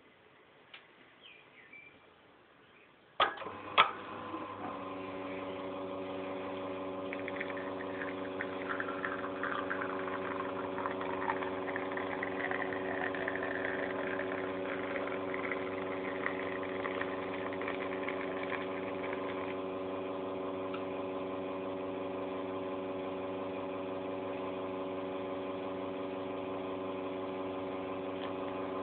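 Kees van der Westen Speedster espresso machine starting a shot: two sharp clicks about three seconds in, then its rotary pump hums steadily through the extraction. A light spattering hiss rides over the hum for the middle stretch as the espresso streams from the bottomless portafilter.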